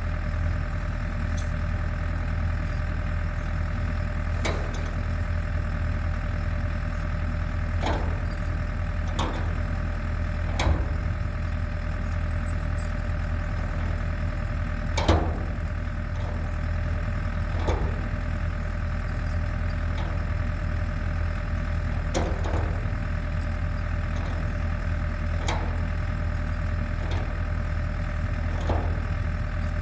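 Champion portable generator's engine running at a steady speed, an even hum that doesn't change. About a dozen short sharp clicks or knocks come at irregular intervals over it, the loudest about halfway.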